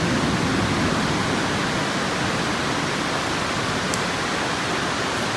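A steady, even rushing noise starts suddenly, with a faint tick about four seconds in.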